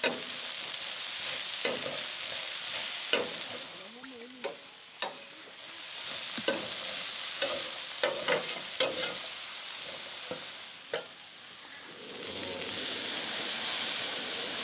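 Okra, onions and pepper frying in bacon grease, sizzling steadily while they are stirred. About a dozen sharp clicks and scrapes of the stirring utensil against the cookware are scattered through.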